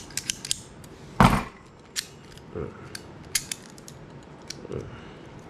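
Knipex pliers wrench and Cobra pliers handled and worked in the hands: scattered sharp metallic clicks of the jaws and adjustment, with one louder knock about a second in.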